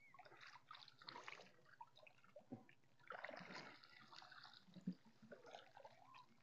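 Faint water trickling and sloshing as a wire-mesh fish trap is worked up out of the water beside a wooden canoe, with one light knock about five seconds in.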